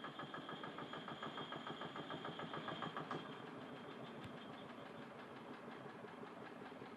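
Single-cylinder Petter diesel engine of a miniature railway locomotive running, with a steady, rapid, regular beat.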